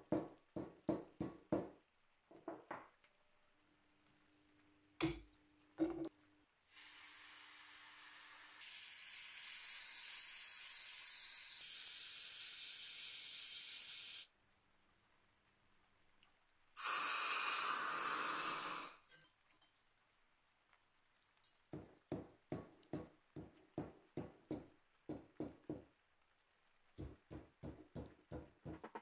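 Mallet tapping a braided copper-wire cuff on a steel anvil in quick runs of about three strikes a second, with a couple of single knocks. Two stretches of steady gas-torch hiss follow, the first growing louder a couple of seconds in, while the copper braid is heated for shaping. The tapping then starts again.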